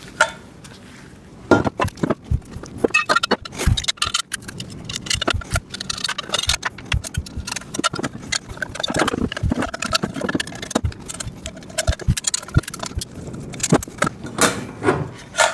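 Steel table parts and their bolts, washers and nuts clinking and clattering as they are handled and fitted together: irregular metallic clicks and knocks, starting about a second and a half in.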